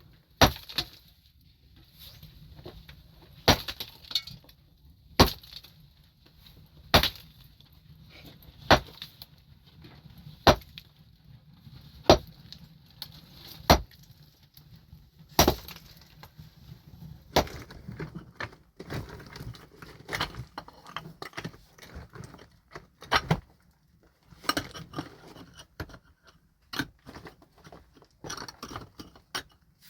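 A pickaxe striking rock in steady, single blows about every second and a half to two seconds. About halfway through, this gives way to a busier, irregular clatter of knocks and stones shifting.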